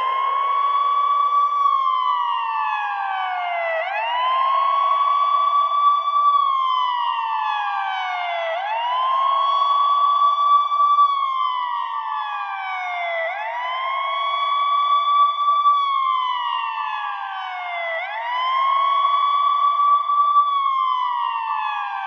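Electronic fire truck siren sounding a wail. Each cycle climbs quickly to a high tone, holds it for about a second, then slides slowly down, repeating about every four and a half seconds.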